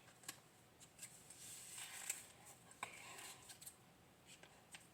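Faint clicks and scraping of hands working to open a ketchup bottle's cap.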